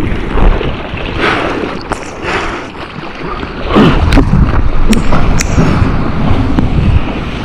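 Wind buffeting the microphone over churning, splashing sea water in choppy surf, growing louder about halfway through.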